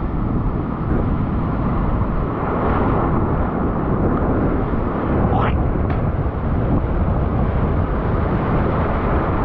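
Churning whitewater of breaking ocean surf rushing around a camera at the water's surface: a loud, steady, deep wash of noise.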